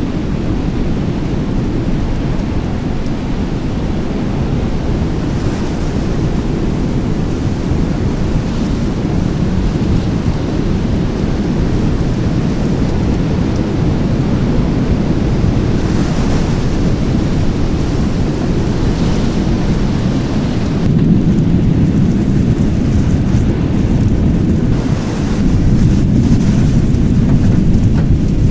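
Thunderstorm wind and rain: a loud, steady, heavy low rushing noise. It swells slightly twice in the second half.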